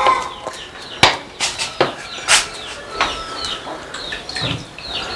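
Farmyard birds calling: repeated short falling chirps from small birds and chicken calls, with a few sharp clicks in between.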